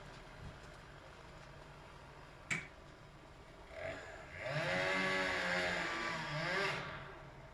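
A single sharp click, then about two seconds in which an engine revs up and falls back.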